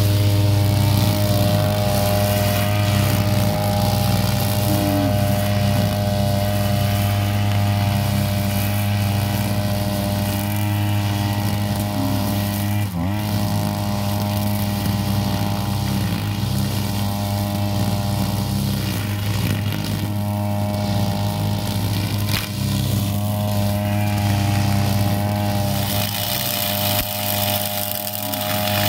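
Backpack petrol brush cutter's engine running steadily at working speed while its blade cuts grass. The engine note dips briefly about halfway through.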